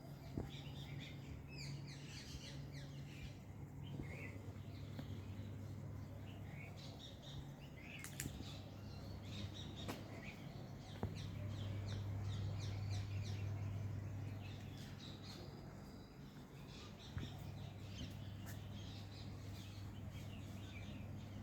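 Small birds chirping and twittering in many short high calls, over a steady low hum that swells a little in the middle.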